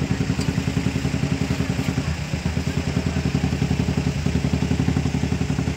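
Small motorcycle engine idling close by, a steady, evenly pulsing run.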